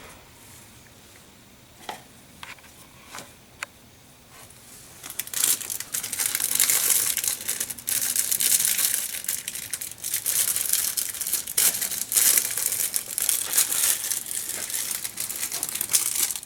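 Plastic packaging crinkling as a new oil filter kit is unwrapped. A few small clicks and taps come first, then about eleven seconds of continuous crinkling.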